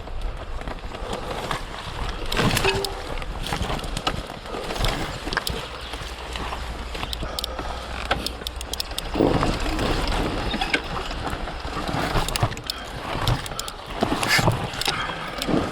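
Surron Ultra Bee electric dirt bike ridden over a rough, rooty forest trail: a steady rattle of chain and chassis with frequent sharp knocks as it hits roots and bumps.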